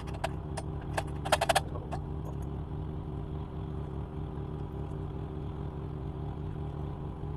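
A few sharp clicks and a short clatter in the first two seconds, from hands working at a clipped-on motorcycle part to pry it loose, over a steady low hum.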